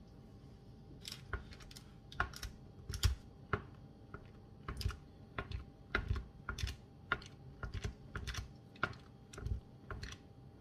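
A metal fork pricking holes in the tops of unbaked meat pies on a baking tray: irregular light taps and clicks, about two to three a second, starting about a second in.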